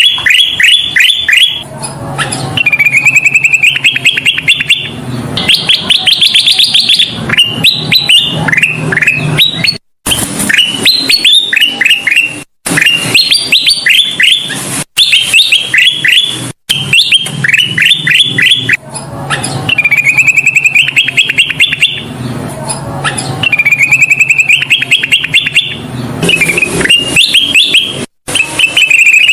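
Kutilang emas bulbul singing continuously in rapid phrases of quick rising chirps, repeated again and again as a lure recording to set other birds singing. A few sudden, complete dropouts of a fraction of a second break the song.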